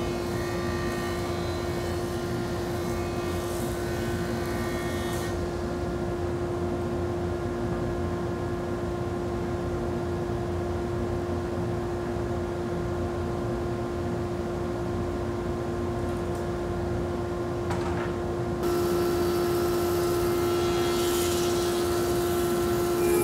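Stationary woodworking machines running with a steady motor drone. A jointer cuts boards for the first five seconds or so. About 19 s in the sound steps louder and brighter as a 20-inch, 5 hp planer takes over.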